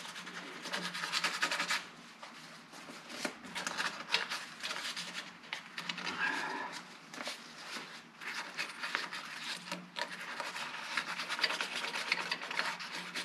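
Emery cloth rubbed back and forth on the end of an outboard motor's copper water inlet tube, cleaning it up so it will slide into the water pump seal. The rubbing comes in quick, uneven strokes, easing off briefly about two seconds in and again near eight seconds.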